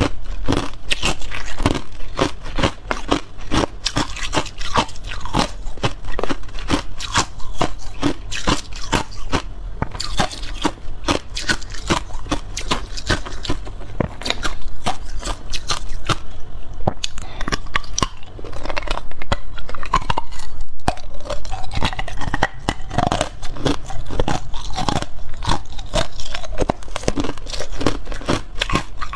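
Hard ice cubes crunched and chewed close to a clip-on microphone: a dense run of sharp, cracking crunches that goes on almost without pause, thinning out now and then between bites.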